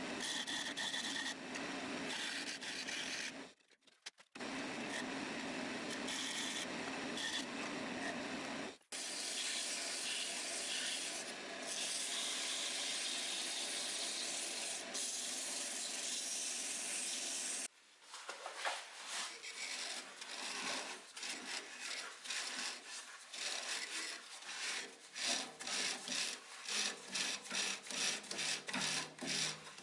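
Abrasive rubbing on old wood, as in sanding or scraping the finish by hand, in several short cut-together stretches. The last stretch is a quick run of back-and-forth strokes.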